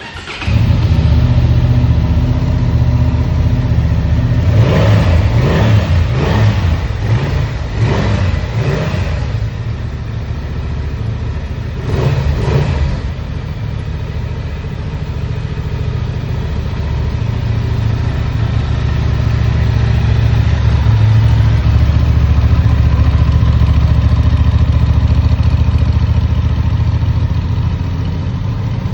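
Honda Transalp 750 parallel-twin engine starting and catching, then idling through its exhaust. A run of quick throttle blips follows a few seconds in, then one more blip, before it settles back to a steady idle.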